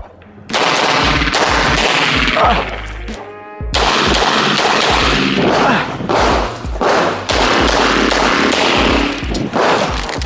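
CZ Shadow 2 9mm pistol fired in rapid strings of shots during a competition stage. Shots begin about half a second in, thin out briefly a little past the three-second mark, then carry on in quick succession.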